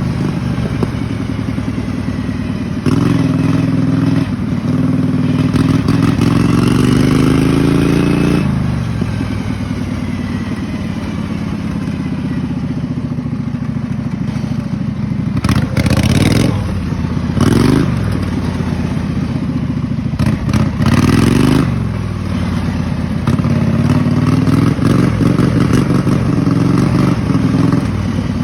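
Kohler Command V-twin engine of a racing lawn mower running hard, its pitch climbing and dropping as the throttle is opened and eased off, with several short surges near the middle and some clattering.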